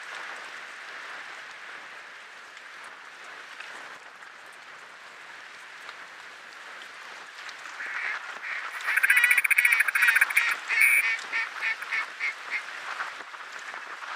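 Duck calls blown by hunters: after a steady background hiss, a loud fast run of quacking chatter starts about eight seconds in and breaks into separate quacks, about three a second, near the end.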